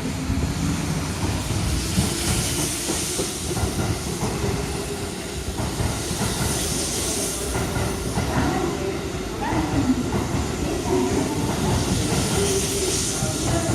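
Tokyo Metro 07 series electric train moving along the station platform: a continuous low rumble of wheels on rail with a steady hiss, and a wavering motor whine coming in about halfway through.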